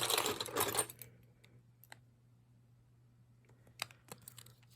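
Jewelry being handled: a second of rustling and jingling, then a few light clicks, like pieces set down, near the end.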